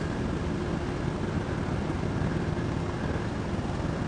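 Steady low rumble of outdoor traffic noise with a faint steady hum underneath, no distinct events.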